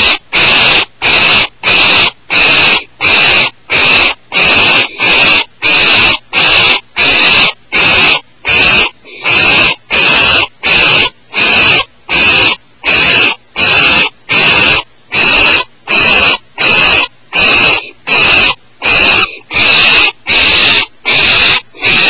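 Barn owl giving harsh hissing calls, each shorter than a second, repeated over and over at an even rhythm of roughly one and a half a second.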